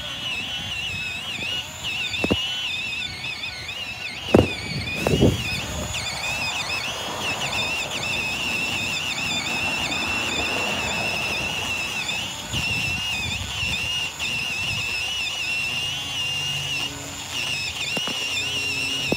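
Manual pole saw working at a tree limb overhead: a few sharp knocks in the first five seconds, then a rough rasping from the blade. A steady, wavering high whistle-like tone runs under it all.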